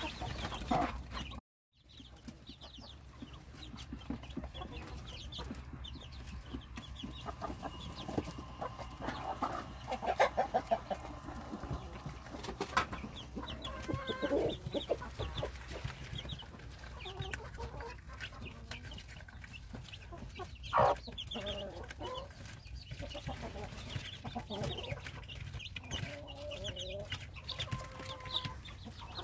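Native Korean hen clucking softly among her chicks, which keep up a scatter of high peeps as they feed. The sound drops out briefly about a second and a half in.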